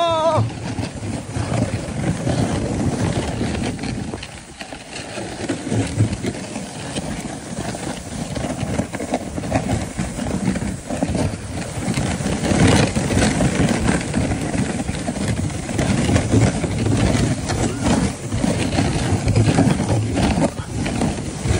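A sled sliding fast down a snow trail: a steady, rough scraping rumble of the sled over packed snow, with a short whoop from a rider right at the start.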